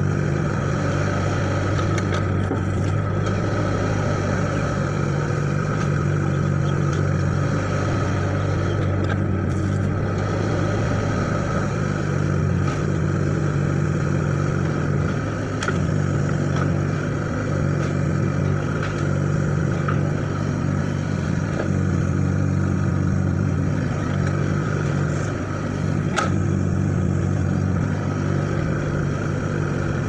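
Hitachi mini excavator's diesel engine idling steadily, a constant low hum with no revving.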